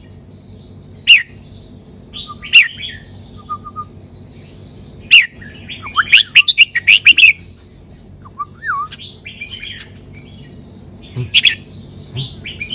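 Red-whiskered bulbul singing: loud, sharp whistled notes one at a time, then a quick run of phrases about six seconds in, and a few quieter notes after.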